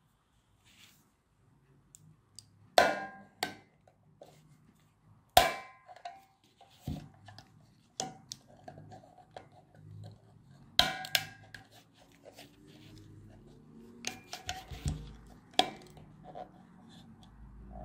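Plastic case of a 4R25 6V lantern battery cracking and clicking as its seam is prised open, a handful of sharp cracks, some with a short ring, the loudest about 3 and 5.5 seconds in and a close pair around 11 seconds, between quieter handling clicks.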